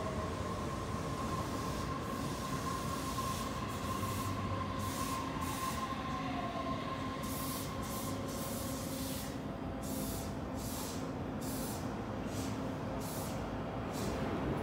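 Tokyo Monorail train arriving at a platform and slowing to a stop. A steady whine fades away as it slows, a tone falls briefly in the middle, and a series of short hisses comes in the second half.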